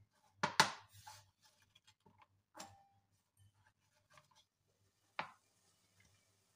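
Sharp knocks and clatters of carrot slices and a cut-glass bowl being handled on a cutting board, loudest about half a second in, with a few lighter taps after and one more knock near the end.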